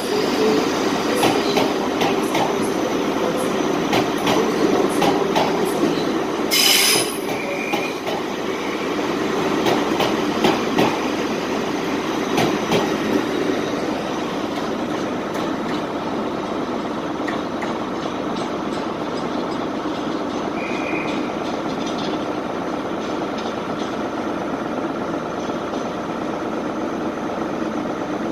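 Train wheels clicking and squealing as a train moves over the station tracks and points. A short burst of hiss comes about a quarter of the way in. After about halfway the clicks stop and a steadier running noise continues.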